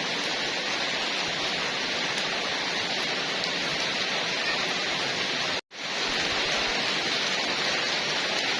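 Heavy rain falling in a steady downpour, a dense even hiss. It cuts out completely for a split second about two-thirds of the way through, then resumes.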